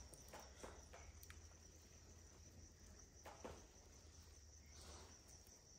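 Near silence with a faint, steady, high cricket trill and a few soft ticks.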